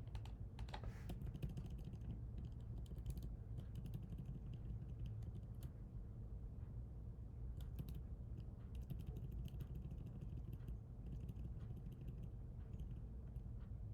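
Typing on a computer keyboard: bursts of quick key clicks with short pauses, over a low steady hum.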